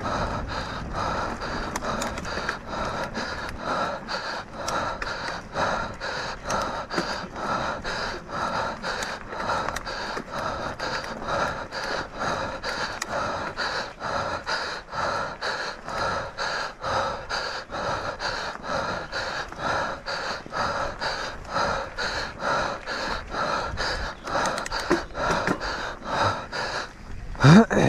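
Mountain bike racer panting hard, about two quick breaths a second, deep in a long enduro race run. Near the end comes a short rising grunt.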